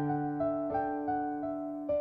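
Background music: a soft electric piano playing a slow melody over a held bass note, a new note struck about every half second.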